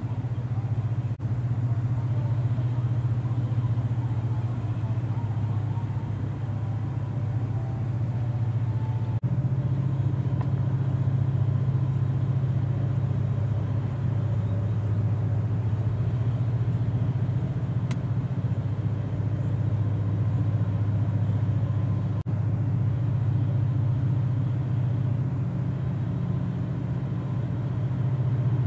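Steady low rumble of a passing gut ship's diesel engine as the grab-crane gravel carrier runs under way.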